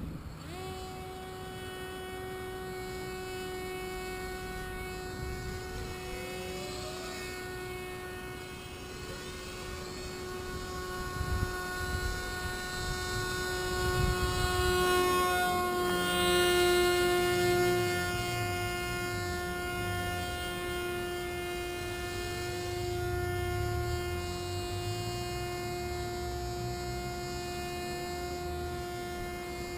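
Small propeller motor, likely the Oxy model's, running at a steady speed: one held whine with overtones. It grows somewhat louder around the middle, then eases back.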